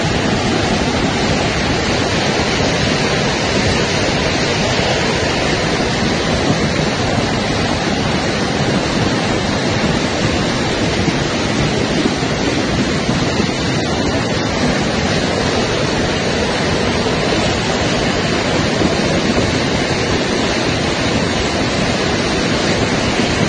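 Torrent of muddy floodwater rushing down a street, a loud, steady rush of water.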